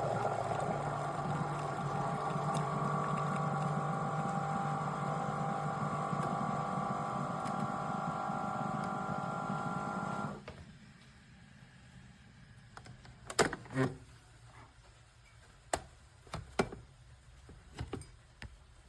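CHULUX single-serve coffee maker running through a brew with a steady buzzing hum, which cuts off suddenly about ten seconds in. A few short clicks and knocks follow.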